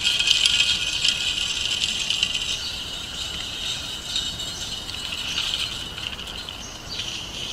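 Sunflower seeds pouring from a plastic feed bag into a wooden bird feeder's hopper: a dry, rattling hiss, heaviest over the first couple of seconds and then thinning out.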